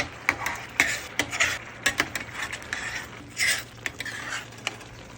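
A utensil stirring food in a pan: a run of sharp clinks against the pan and short scraping swishes, several a second, as the garlic shrimp is tossed.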